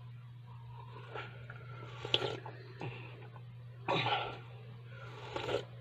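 A man sipping tea from a glass mug: short noisy slurps about four and five and a half seconds in, after a sharp click near two seconds, over a steady hum.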